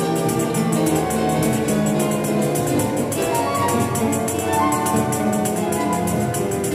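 A string orchestra of violins, cellos and double bass playing a flowing passage of held notes.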